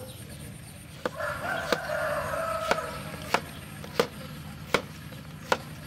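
A cleaver chopping gourd on a wooden cutting board: about seven sharp chops at a steady, unhurried pace. A rooster crows once, from about a second in for roughly two seconds, under the chopping.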